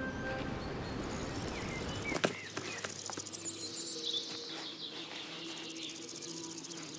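Summer countryside ambience: wild birds give a few short chirps, and a steady high insect chirring runs underneath. One sharp click comes about two seconds in, and held music notes fade out at the very start.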